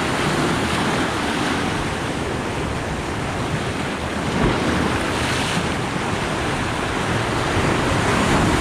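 Open-sea surf washing over a rocky shore: a steady rush of waves, with wind buffeting the microphone and one wave surging a little louder about five seconds in.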